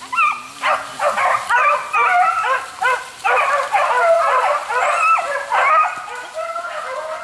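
A pack of beagles baying together, many overlapping rising and falling cries, as the hounds run the hare's scent trail in full cry. The chorus thins a little near the end.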